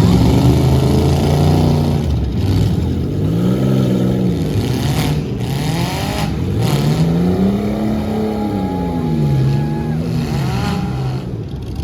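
Demolition derby cars' engines revving, the pitch climbing and falling again and again, several engines overlapping.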